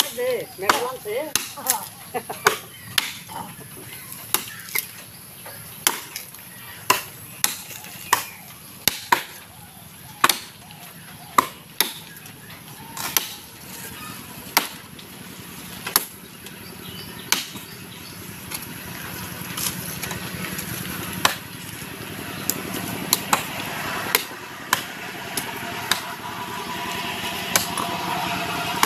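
Axe chopping into the trunk of a mango tree, a string of sharp wooden blows at uneven intervals, roughly one a second.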